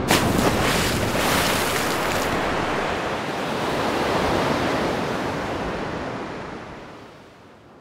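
Steady rushing noise, like surf or wind, used as an intro sound effect; it is loudest over the first couple of seconds and fades away over the last few seconds.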